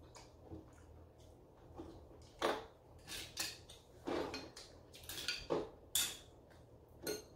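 Mussel shells clattering against each other and a glass bowl as they are picked through by hand: a quiet start, then a string of sharp clinks and clacks from about two seconds in.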